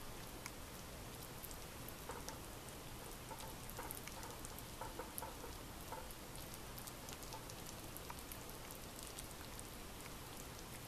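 Clay pot of spicy soup simmering: a faint steady hiss dotted with many small crackling pops and bubbles.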